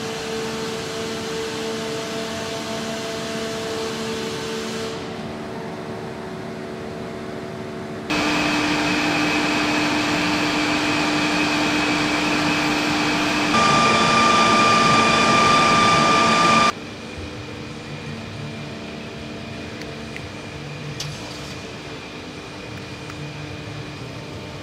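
Steady mechanical hum and hiss of hangar machinery, with low steady tones underneath. It jumps abruptly in loudness and pitch several times, and a high steady whine stands out for about three seconds past the middle.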